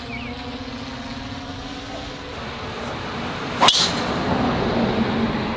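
A golf driver striking a teed ball: one sharp, loud crack about three and a half seconds in.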